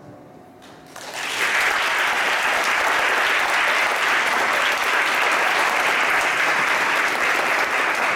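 Audience applauding: after a brief hush, the clapping breaks out about a second in and carries on steadily.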